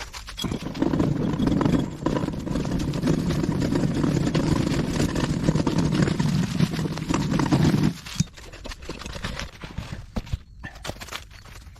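Heavily loaded wheeled yard cart full of rock being pulled over rough ground, rattling and rumbling for about seven seconds. It then stops abruptly, followed by scattered knocks.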